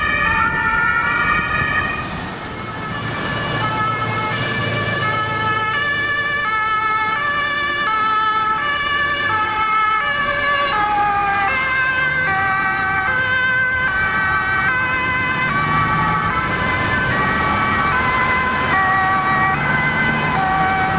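Two-tone sirens of German emergency vehicles (fire brigade and police), several at once, their alternating high-low notes overlapping at different pitches over traffic noise. The sound dips briefly about two seconds in, then carries on.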